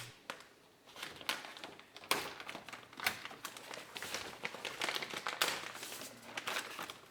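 Plastic door water shield crinkling and crackling as it is peeled off the inner door skin, in irregular bursts that begin about a second in.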